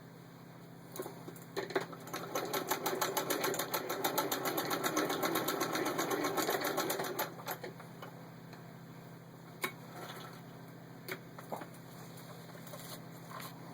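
1919 Singer 66-1 sewing machine stitching through six layers of denim: a rapid, even clatter of stitches that starts about a second and a half in and stops about seven seconds in. A few scattered clicks and knocks follow from the machine and fabric being handled.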